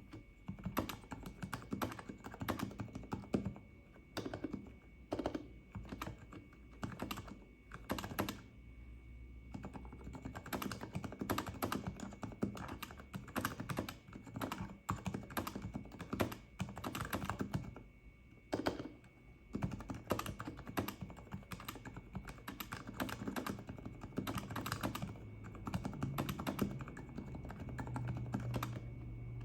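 Typing on a Vortex Pok3r mechanical keyboard with lubed Cherry MX Silent Red switches, dampened with tape, paper towel and PE foam mods: a steady run of soft, muted keystrokes with short pauses.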